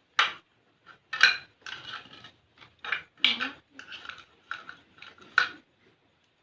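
Toy cooking utensils and dishes clinking and knocking together as they are handled, in a string of short, irregular clatters.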